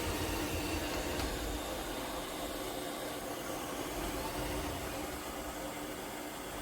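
eufy X10 Pro Omni robot vacuum-mop running steadily in its intense vacuum-and-mop mode: an even whir with a constant low hum.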